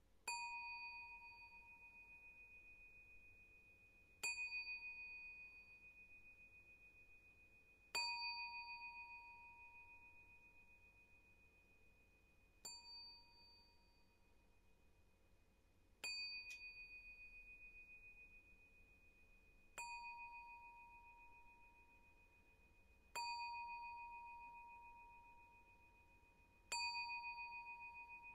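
A bell struck once every three to four seconds, eight strikes here, each one ringing on in a clear tone that slowly fades. One strike about halfway through is softer. The strikes are part of a memorial tolling of 31 strikes.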